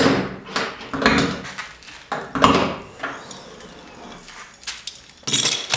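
Front hood of a Porsche 987 Cayman being released and lifted open: a few clunks and rattles from the lid and its latch, the loudest about two and a half seconds in, with a short rattle near the end.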